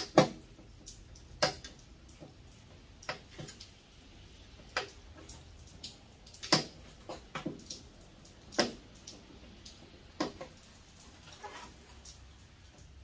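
Hand wire cutters snipping through a furnace's wiring: a series of sharp snaps every second or two, the loudest at the very start.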